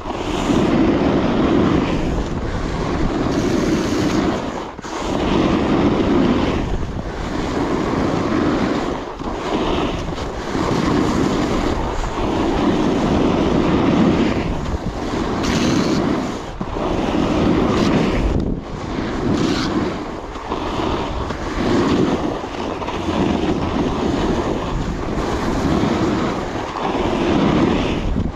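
The edge of a Coiler Nirvana alpine snowboard carving groomed snow in linked turns. A rushing scrape swells and fades about every two seconds, turn after turn, mixed with wind rushing on the microphone.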